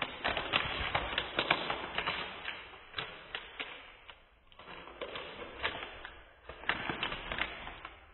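Foil trading-card pack wrapper being crinkled and torn open by hand, a dense crackling in three bouts with short pauses between them.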